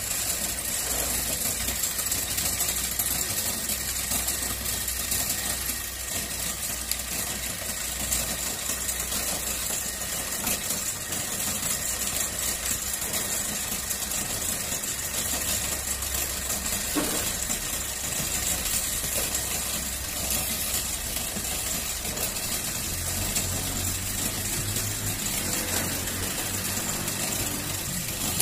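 Pan-type concrete mixer running, its engine giving a steady drone throughout; the low hum changes character about three-quarters of the way through.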